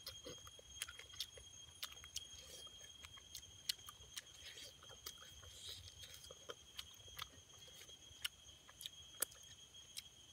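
A person eating a pork leg close to the microphone: wet chewing and irregular sharp lip smacks. A steady high-pitched tone runs underneath.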